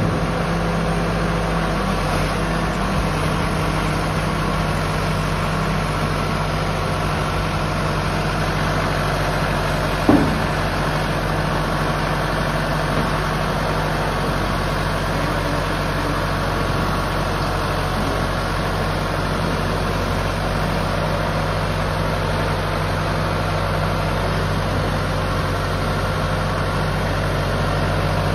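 Tracked horizontal directional drilling rig's diesel engine running steadily as the machine crawls up a ramp onto a truck. A single knock comes about ten seconds in.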